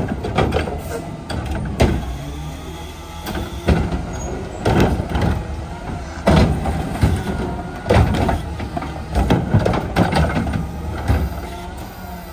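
Garbage truck's Curotto-Can automated arm gripping, lifting and tipping a plastic wheeled trash cart into the carry can, with a series of sharp bangs and knocks about a second apart as the cart is shaken out and set back down. The truck's engine runs steadily underneath to drive the hydraulics.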